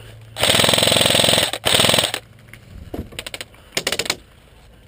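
Airsoft electric gun firing on full auto: a loud burst of about a second, then a second burst of about half a second, each a fast rattle of the gearbox cycling. A few shorter, quieter bursts follow about three and four seconds in.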